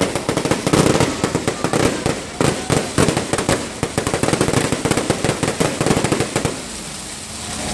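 Fireworks going off in a rapid, dense run of sharp bangs and crackles, thinning out near the end.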